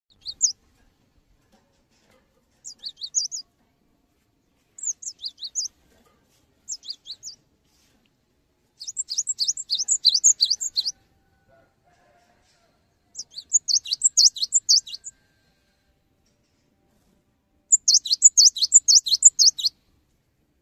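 Cinereous tit (gelatik batu) singing in short bursts of rapid, high chirping notes with silent gaps between. The phrases are brief at first. Later come three longer, denser runs of about two seconds each.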